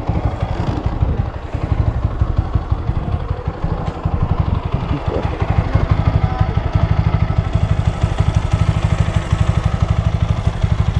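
Motorcycle engine idling with an even, fast pulsing beat.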